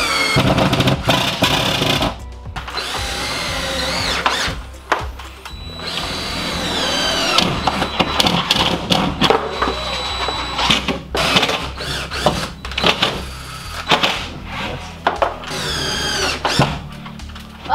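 Cordless drill-drivers driving screws through drywall into ceiling joists, starting and stopping repeatedly, over background music.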